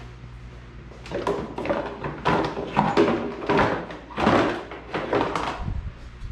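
Welded steel exhaust pipe being handled and fitted onto a kart frame: a run of irregular clunks and scrapes of metal against metal, starting about a second in and stopping near the end, over a low steady hum.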